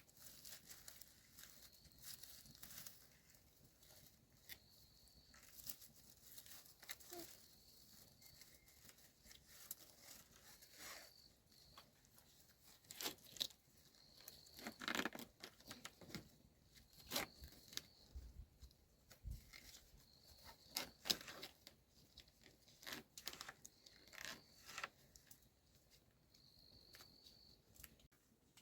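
Faint, sporadic rustling and tearing, like material being handled and torn, with scattered clicks that come thicker in the middle and later part. A brief faint high chirp recurs every few seconds.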